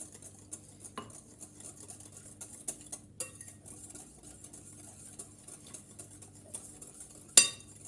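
Hand whisk stirring cake batter in a bowl, with light clicks of the wires against the bowl's side and one sharp, ringing clink near the end.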